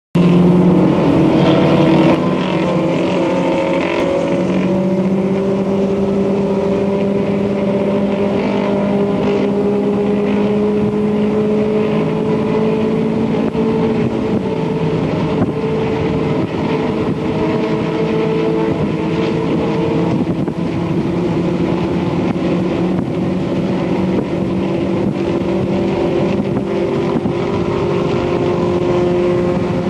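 Isuzu Stylus race car's four-cylinder engine running hard under load. Its pitch climbs slowly for about half the time, drops abruptly, then climbs again.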